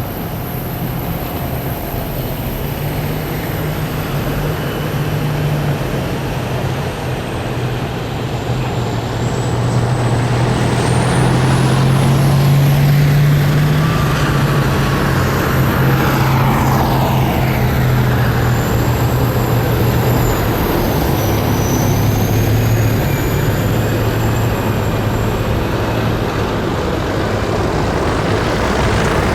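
A column of heavy military vehicles driving past, their engines making a loud, deep drone that builds to a peak about halfway through and then eases off a little. High whining tones slide up and down in pitch as individual vehicles go by.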